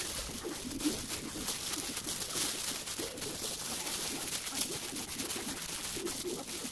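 Plastic food gloves crinkling and a bamboo sushi mat rustling and clicking as a gimbap roll is pressed and rolled by hand.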